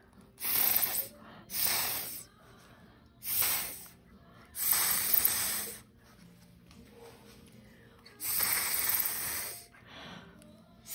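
Mouth atomizer blown by mouth in five separate hissing puffs, each about half a second to a second long, spraying a fine mist of watercolour paint.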